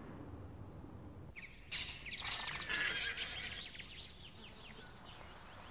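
A horse whinnying once, loud and high, starting about a second and a half in, then sliding down in pitch and trailing off over about two seconds, over faint outdoor background noise.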